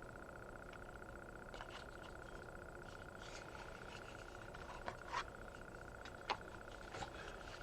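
Faint handling noises: a few soft clicks and rustles, the sharpest about five and six seconds in, over a steady faint high-pitched hum.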